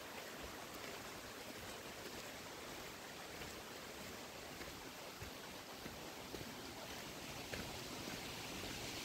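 Faint, steady outdoor background hiss with a few faint, soft ticks now and then.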